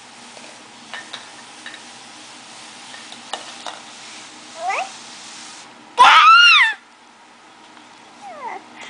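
A toddler's loud, high-pitched squeal lasting under a second, about six seconds in, its pitch arching up and back down. Shorter rising and falling squeaks come before and after it, with a few light knocks early on.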